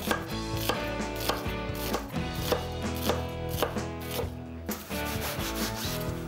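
Chef's knife slicing through a raw onion on a wooden cutting board: a series of cutting strokes, the blade scraping through the layers and tapping the board.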